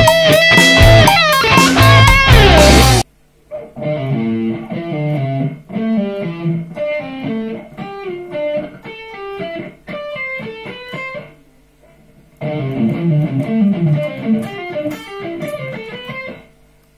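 About three seconds of loud rock music with a distorted lead guitar cut off abruptly. Then an Ibanez electric guitar alone plays a lead phrase of picked notes and pull-offs, note by note. It stops, then plays the phrase again faster.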